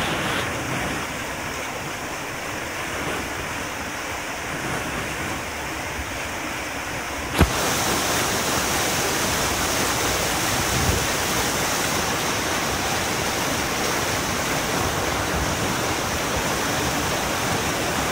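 Whitewater of a river rapid rushing, a steady even noise. About seven seconds in there is a sharp click, after which the water sounds slightly louder and brighter.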